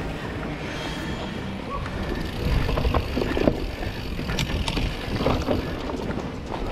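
Mountain bike riding down a dry dirt trail: the tyres rolling over the ground under a steady low rumble, and the bike rattling and knocking over bumps, loudest between about two and a half and three and a half seconds in.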